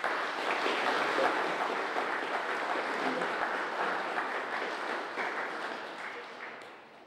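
Audience applauding, starting abruptly and dying away over the last second or two.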